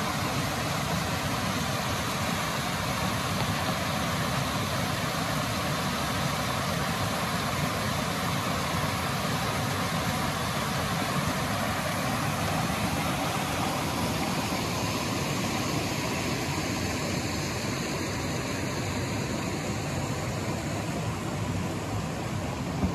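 Mountain creek rushing over small rock ledges and cascades: a steady, even rush of water, easing slightly in the last few seconds.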